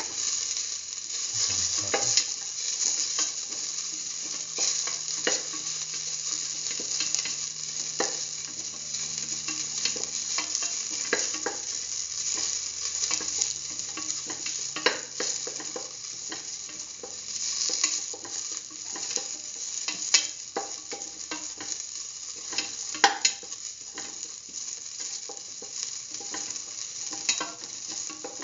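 Sliced onions and whole shallots sizzling in oil in a steel pan as they are stirred, with a steady frying hiss and irregular scrapes and knocks of the stirring utensil against the pan.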